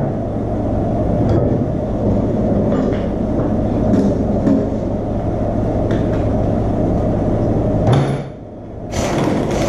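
Steady low machine drone with a hum, and a few light metal clinks from hand tools and hardware as a nut is threaded onto a mower's caster spindle. Everything drops out briefly just after eight seconds in.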